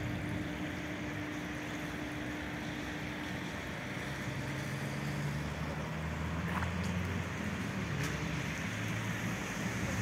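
A steady low engine drone over a hiss of outdoor noise.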